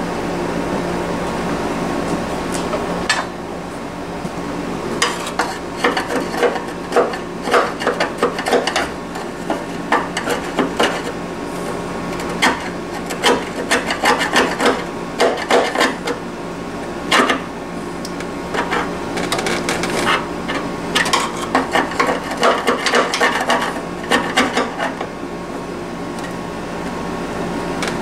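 Irregular metal scraping and rasping strokes in a window air conditioner's base pan as a drilled drain hole is worked and cleared by hand, over a steady hum.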